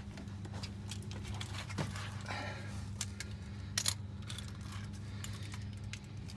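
Light metallic clinks and rattles of sockets and hand tools being handled while a socket is swapped on a ratchet, with a couple of louder clinks, over a steady low hum.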